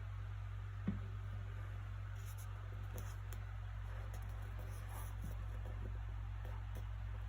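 Soft paper sounds of a book being handled, faint scattered rustles and light ticks over a steady low background hum, with one short soft knock about a second in.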